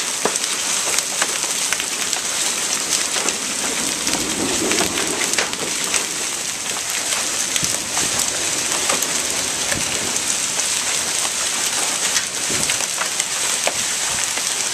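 Heavy storm rain pouring down in a steady, dense hiss, with many sharp ticks of drops striking hard surfaces close by.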